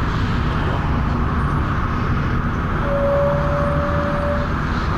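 Volvo B10BLE bus's six-cylinder diesel and cooling fan running steadily. A single steady squealing tone joins about three seconds in and stops after under two seconds.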